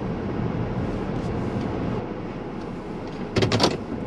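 A car's engine and tyres heard from inside the cabin as it rolls slowly across a parking lot and pulls into a spot, the rumble easing about halfway through. A short burst of rapid clicks comes near the end.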